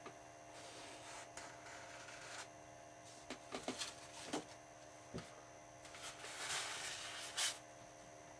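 Soft rustling and rubbing of hands wiping excess epoxy off an RC airplane wing at a workbench, with a few light clicks and taps around the middle, over a steady electrical hum.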